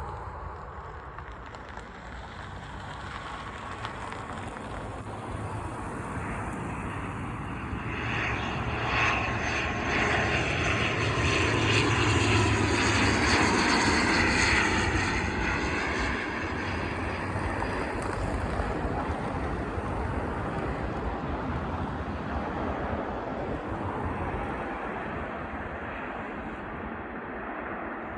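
ATR 72 twin-turboprop airliner passing while landing. The engine and propeller drone swells to its loudest about ten to fifteen seconds in, its whine falling in pitch as the aircraft goes by, then eases off.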